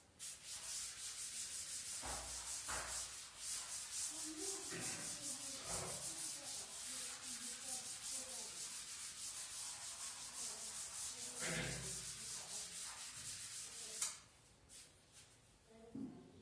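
Blackboard duster scrubbing chalk off a blackboard in quick back-and-forth strokes. The rubbing stops abruptly about fourteen seconds in with a sharp tap.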